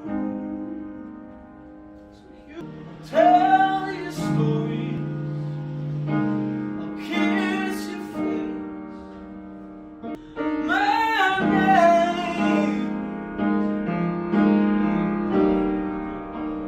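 Piano playing, with a voice singing long, wavering notes over it in two passages, one a few seconds in and one about two-thirds of the way through.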